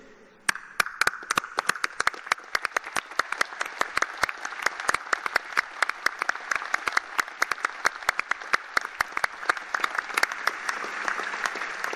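Large crowd applauding, starting about half a second in and holding steady, with sharp individual claps standing out from the mass of clapping.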